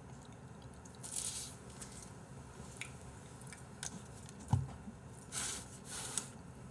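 Soft, intermittent chewing and crunching of fried chicken, with a few small clicks and a dull knock about halfway through.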